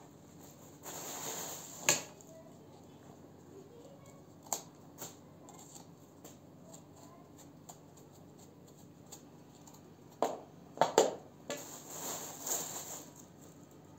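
Kitchen handling noises: a plastic bag rustling in two short spells, about a second in and again near the end, with a few sharp taps and clicks on a metal tray as aubergines and a knife are handled.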